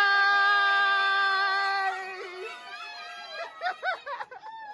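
A woman's voice holding one long, high, steady shout for about two and a half seconds as the surprise is sprung, then breaking into short rising-and-falling cries.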